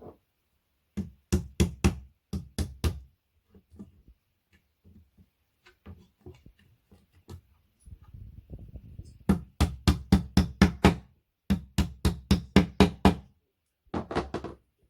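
Hammer tapping wooden dowels home in a flat-pack furniture panel, in quick runs of strikes, about five a second, with short pauses between runs.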